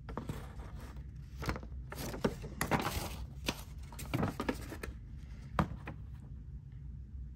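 Folded paper leaflet being unfolded and handled: irregular crackling rustles of paper with a few sharper crinkles, over a low steady hum.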